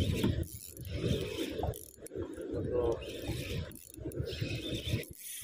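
Kenko SW2000 fishing reel being cranked to reel in a hooked fish, a rough mechanical whirring in uneven pulses, with clothing brushing over the microphone.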